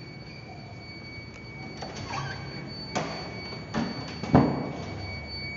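Fire alarm system buzzer sounding one steady high-pitched electronic tone. Three sharp knocks of hands and tools on hardware come over it, the loudest about four and a half seconds in.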